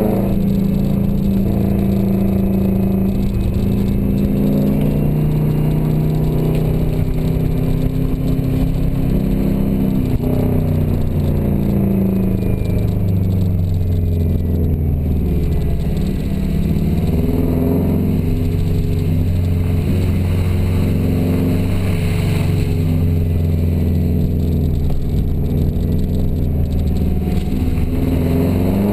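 Subaru Forester XT's turbocharged flat-four engine heard from inside the cabin, its pitch climbing and falling again and again as it is revved through the gears. Steady road and tyre noise lies under it.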